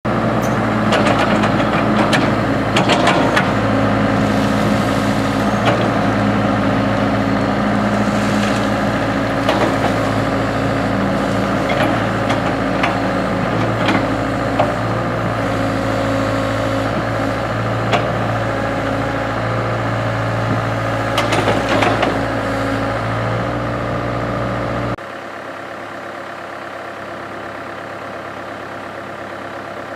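Excavator's diesel engine running steadily at a low, even pitch, with scattered knocks and clanks as it works. About 25 seconds in, the engine sound drops to a quieter, steady hum.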